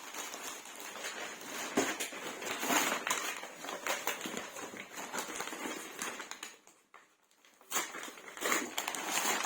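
Rustling and crinkling of packaging and items being handled, with many small clicks, stopping briefly about seven seconds in.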